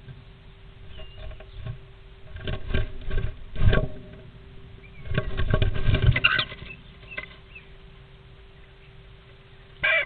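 A female European starling scrambles into a wooden nest box, her claws scratching and scuffling on the wood and nest material, loudest about five to six and a half seconds in. A few short squeaky calls come through the scuffling, and there is one brief call just before the end.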